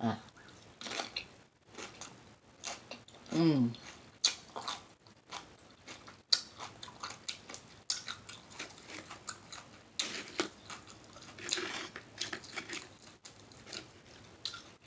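Close-miked eating: crunching and wet smacking while chewing a chip loaded with shrimp salad, in many short crackles.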